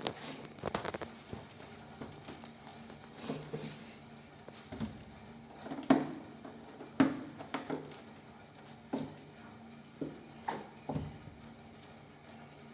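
Kittens playing: light scuffling and scattered soft knocks and taps at an irregular pace, the two loudest about six and seven seconds in.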